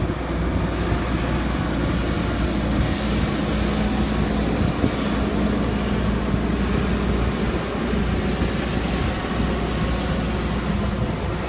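Diesel engine of a John Deere logging machine running steadily, with a low, even hum and no change in speed.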